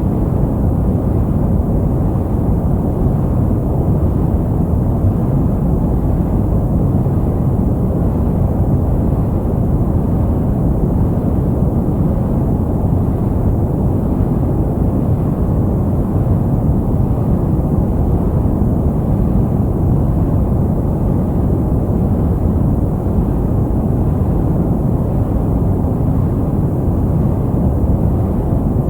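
Steady sleep-aid noise, deep and even, with its energy in the low rumbling range and little hiss on top, unchanging throughout.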